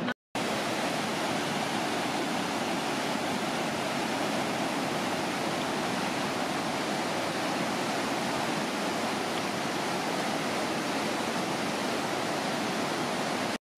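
Aare river water rushing over a weir: a steady, even rush of white water.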